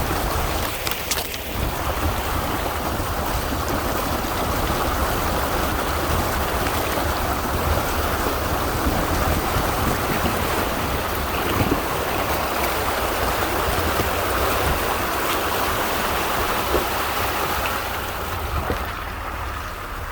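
A vehicle driving through a creek crossing: water rushing and splashing with a steady low engine rumble, growing quieter near the end.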